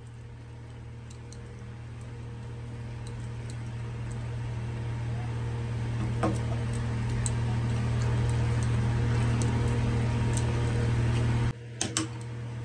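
A spatula stirring greens and potatoes in a nonstick pan, making scattered light clicks and scrapes, over a steady low electrical hum that grows louder and cuts off abruptly near the end.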